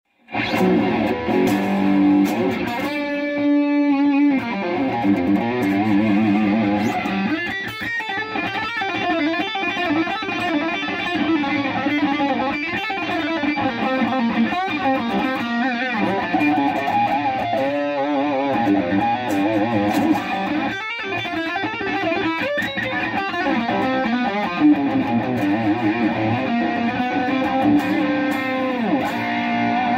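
Electric guitar played through a Marshall MG101FX transistor combo amplifier: a continuous run of picked notes and chords that changes pitch throughout.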